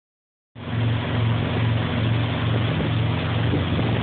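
Towboat's inboard engine running steadily under way, a low hum that pulses about twice a second, over the rushing water of the wake. It starts abruptly about half a second in.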